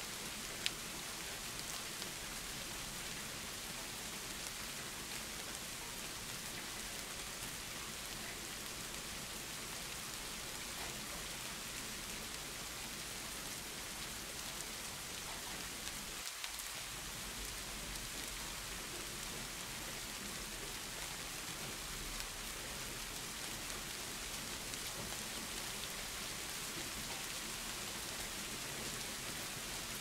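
Steady rain falling, an even hiss with scattered drop ticks; one sharper tick comes just under a second in.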